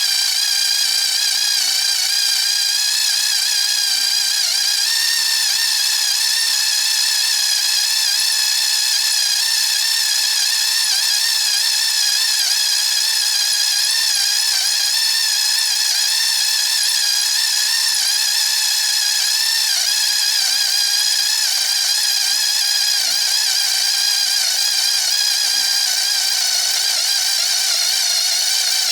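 Electric drill running under load as a freshly resharpened drill bit cuts into metal: a steady high whine that wavers slightly in pitch.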